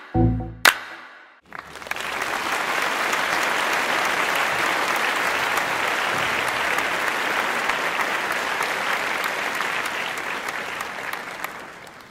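The last notes of a music track, then applause: many hands clapping in a dense, steady patter that fades in, holds for about ten seconds and fades away near the end.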